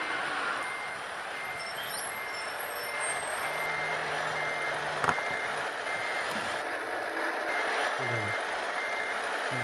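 A truck's reversing alarm beeping steadily, about two beeps a second, over a constant hiss, with one sharp click about five seconds in.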